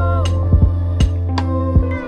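Background music with a steady beat over a held bass; the bass drops out near the end.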